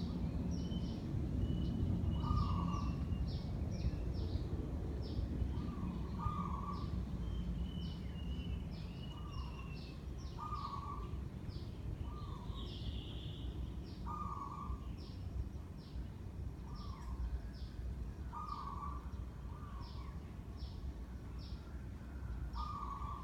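Steady low rumble of a running 56-inch Sunwindy ceiling fan, with birds calling throughout: short notes repeating every second or two and quick high chirps.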